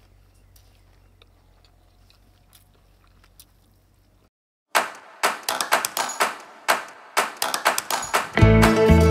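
Faint clicks and smacks of a man eating by hand off a banana leaf, over a low hum. After a brief silence about halfway through, loud music with sharply plucked notes starts, and a heavy bass beat joins near the end.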